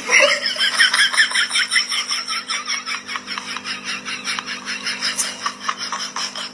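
An animal making a fast run of short, high chirping calls, about seven a second, over a steady low hum.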